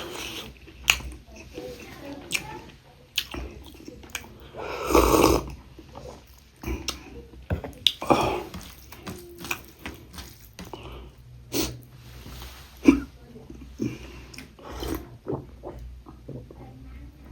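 Close-miked eating sounds of a person chewing and biting pork ribs: many short wet mouth clicks and smacks, with a louder noisy mouth sound lasting about a second around five seconds in.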